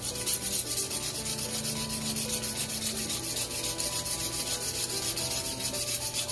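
Kitchen knife blade drawn quickly back and forth through a handheld pull-through knife sharpener: a steady, even rasping rhythm of several metal-on-carbide scrapes a second.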